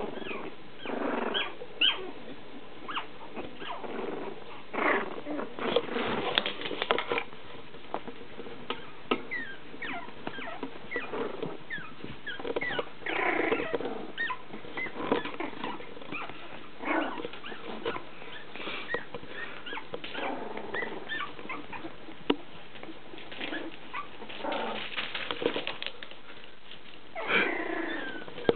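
Young puppies play-fighting: small growls, squeaks and whimpers mixed with scuffling, coming irregularly, with a louder squeal near the end.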